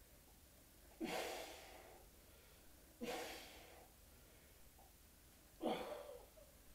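A man breathing out hard three times, about two seconds apart, each breath a short grunt that trails off into a hiss, from the strain of inverted sit-ups done hanging upside down.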